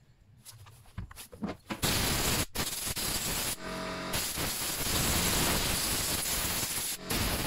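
Loud hiss of air blown from a nozzle to clear dirt off a chainsaw engine, starting about two seconds in and broken by a few short stops as the flow is let off. Faint clicks of handling come before it.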